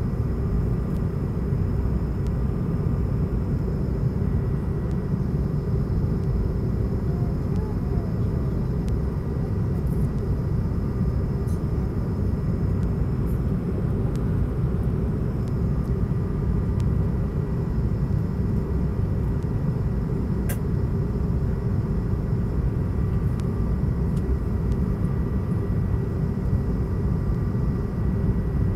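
Steady cabin noise inside an Airbus A220-300 on approach: a dense low rumble of airflow and its Pratt & Whitney PW1500G geared turbofan engines, with faint steady tones above it. A single faint click about twenty seconds in.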